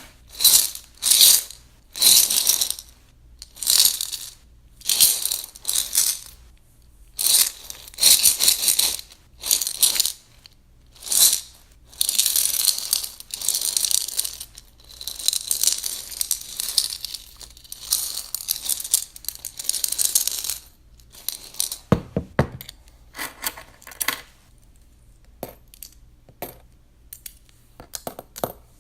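Coins rattling and clinking in a piggy bank: short jingling bursts about once a second, then a longer continuous jingle, then a low ringing sound and scattered single clinks near the end.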